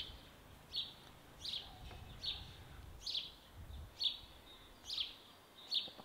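A small bird calling over and over: a short, high, falling chirp about every three-quarters of a second, faint over quiet outdoor background.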